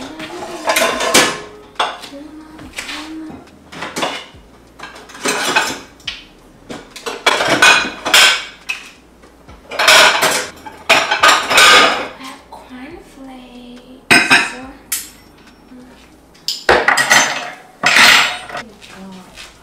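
Dishes, pots and cutlery clattering and clinking as they are washed and handled at a kitchen sink, in short bursts every second or two.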